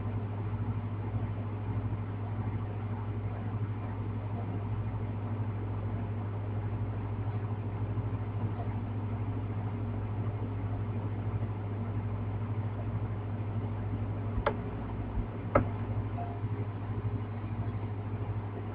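Steady low electrical hum with a faint hiss, broken near the end by two sharp clicks about a second apart.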